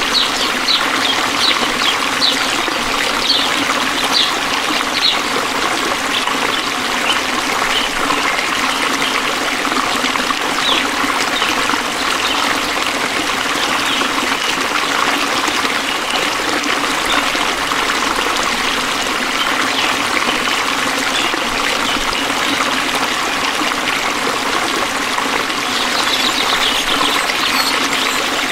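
A stream trickling and flowing steadily, with short high chirps repeating over it in the first few seconds and again near the end.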